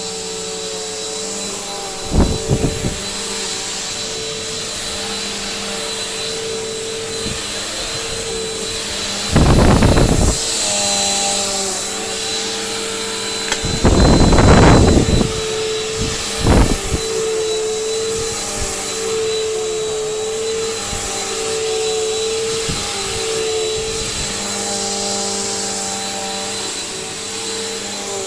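Bissell Powerforce bagged upright vacuum cleaner running with a steady motor whine and airflow hiss. It is broken by several short, louder bursts of noise, the longest about two-thirds of the way through.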